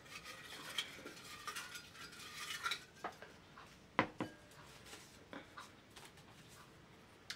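Folded paper slips being stirred and rustled in a small glass fishbowl, with a few sharp clicks, the loudest about four seconds in.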